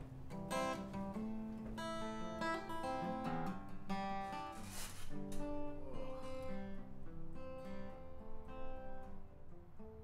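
Acoustic guitar playing a continuous run of separate plucked notes.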